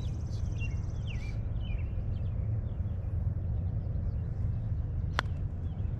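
Small birds chirping in short repeated calls over a steady low rumble, with one sharp click about five seconds in.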